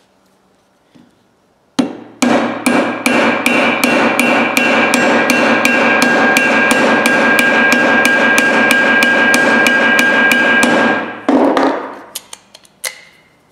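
Ball-peen hammer striking steel on a vise anvil, peening over the pivot of a pair of oil filter pliers: a fast, even run of blows, about four a second, with a steady metallic ring beneath them. It starts about two seconds in and stops about eleven seconds in, followed by a few lighter taps.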